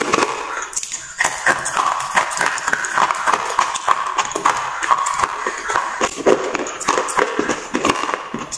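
Slate pencils being crunched and chewed in the mouth: a dense, irregular run of crackles and clicks.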